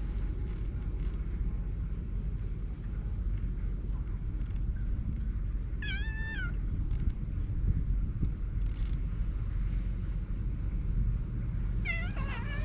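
A cat meowing twice: one short meow about halfway through and another near the end, over a steady low rumble.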